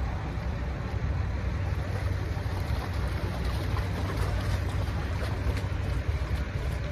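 Steady low rumble of boat engines running.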